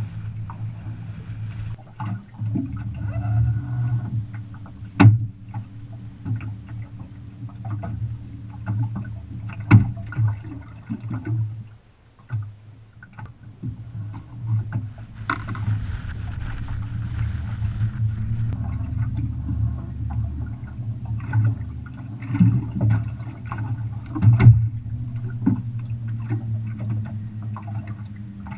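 Water slapping against an aluminium fishing boat's hull under a steady low rumble, with scattered sharp knocks and clicks from gear on the boat; the loudest knocks come about 5, 10 and 24 seconds in.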